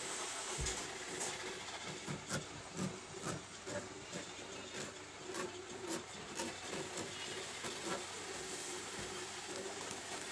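Cotton shirt cloth rustling and brushing as hands smooth and fold it on a cutting table: irregular soft scrapes and taps, with a low thump just under a second in, over a steady background hiss.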